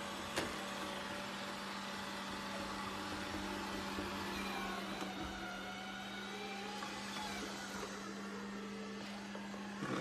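Deebot robot vacuum cleaner running with a steady hum and hiss. There is a single click about half a second in.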